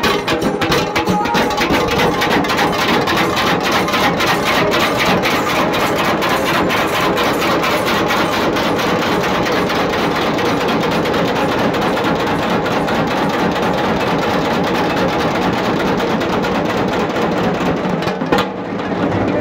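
A band of several dhol drums beaten with sticks, playing together in a fast, dense, driving rhythm. The drumming eases briefly near the end.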